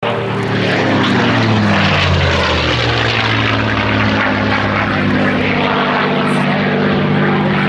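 Light propeller aircraft's engine running in flight, its pitch sliding down over the first couple of seconds and then holding steady.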